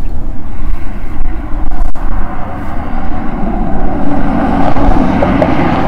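Road vehicle noise, a steady rumble that grows louder from about four seconds in as a vehicle approaches.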